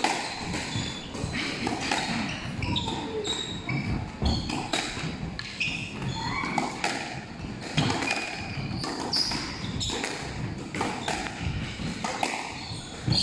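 Squash rally: the ball cracking off racket strings and the court walls in an irregular run of sharp hits, with shoes squeaking and shuffling on the hardwood floor.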